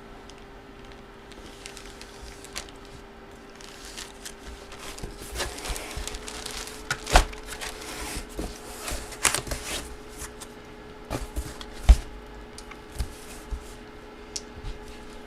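Packaging being handled and opened: rustling and crinkling with scattered knocks, busiest in the middle, and two sharper knocks about seven and twelve seconds in, over a faint steady hum.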